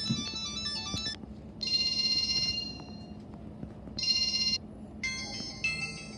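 Samsung GT-E1150 mobile phone playing its built-in polyphonic ringtones from its small speaker. A quick melody of short beeping notes stops about a second in. Two short bursts of a brighter chiming tone follow, and another melody of beeps starts near the end.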